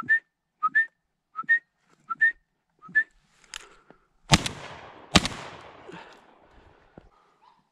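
A series of short rising whistles, mostly in pairs, then two shotgun shots just under a second apart, fired at a thrush flying overhead that gets away.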